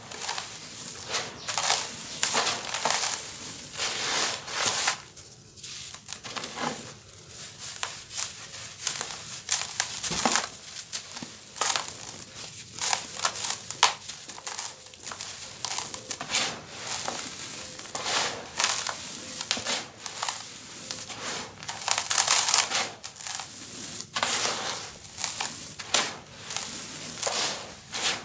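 Handfuls of dry, gritty sand being squeezed, crumbled and let fall by hand: irregular crunching and grainy rustling in uneven bursts, with a few short lulls.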